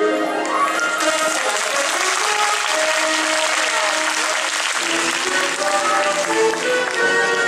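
Crowd applauding over music. The clapping swells about a second in and dies away after about five seconds, while the music's held notes carry on.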